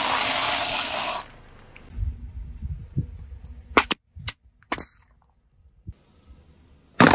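A car tyre crushing dry instant-noodle blocks with a loud crackling crunch for about a second. Then a low tyre rumble with scattered clicks and two sharp snaps, and a loud sharp crack near the end.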